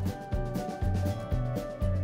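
Background music with a bass line and a steady beat, about two beats a second.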